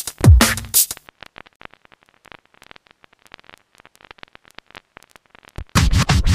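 Electronic background music. Heavy kick drums sound in the first second, then there is a quiet break of faint rapid ticks, and the full beat with deep bass comes back near the end.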